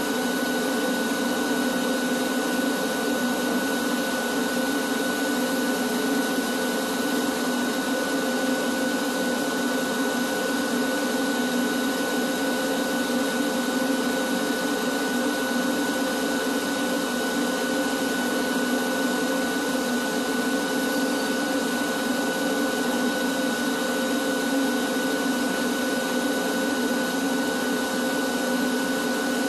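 Industrial drum-type canister vacuum running steadily with its hose drawing air, a constant rush of air under a steady high whine.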